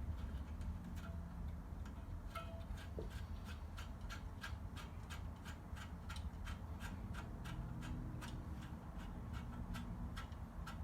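Even, rapid ticking, about three ticks a second, over a low steady hum.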